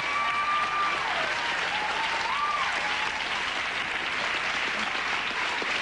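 A studio audience applauding steadily, with a high voice crying out in long held notes over the clapping during the first couple of seconds.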